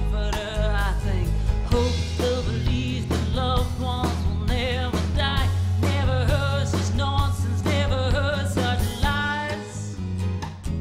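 Live band playing with a woman singing into a microphone, her long held notes wavering with vibrato over a steady bass line.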